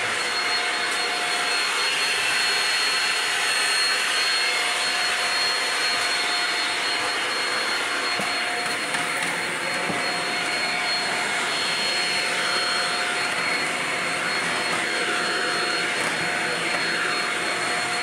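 Shark DuoClean stick vacuum running steadily while pushed over a tile floor: a continuous rush of air with a steady high motor whine.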